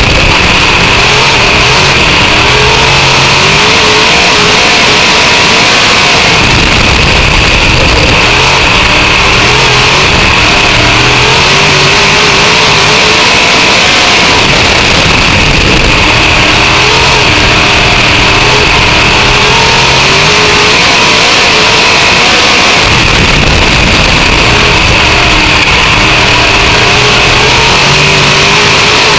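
Dirt-track race car engine at racing speed, very loud and constant, heard from the cockpit. Its pitch rises and falls again and again as the throttle is worked around the laps.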